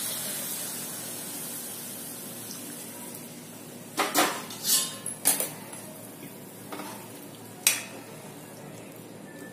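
Hiss of water just added to a hot pan of curry, fading away, then a metal spoon stirring the gravy and clinking against the pan several times from about four seconds in.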